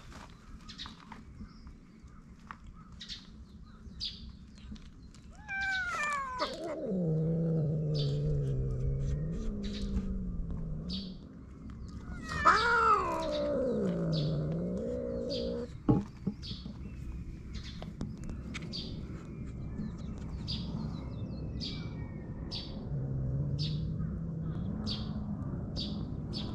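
Stray cat caterwauling at another cat in a standoff: two long yowls that start high, slide down and waver into a low moan, then a lower, steadier moan near the end, the threat call of a cat warning off a rival. A bird chirps over and over in the background.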